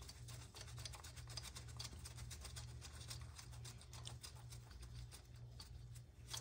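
Faint, irregular small clicks and handling noise as a gloved hand threads and snugs the 10 mm bolt that holds a coil pack, over a steady low hum.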